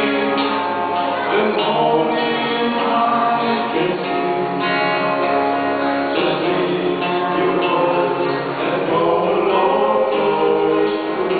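Two male voices singing a gospel duet over acoustic guitar accompaniment, amplified through a PA.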